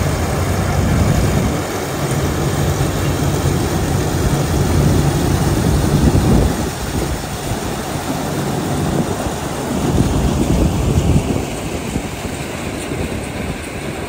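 Farmall tractor with a mounted McCormick corn picker harvesting dry corn: a steady engine hum under a broad rushing noise, the engine tone growing weaker after about six seconds.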